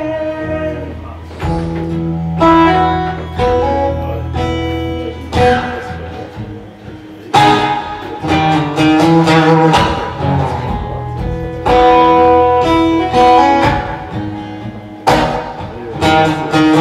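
Acoustic guitar strummed in an instrumental passage of a song, chords struck every second or two and left to ring over sustained low notes.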